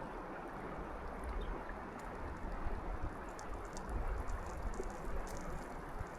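Steady rushing of flowing water, like a stream running by the ice, with a low rumble of wind on the microphone and a few faint high clicks about midway.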